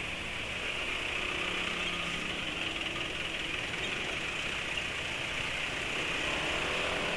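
Motor scooter engine running at idle, a steady mechanical drone with hiss, rising slightly in pitch about six seconds in.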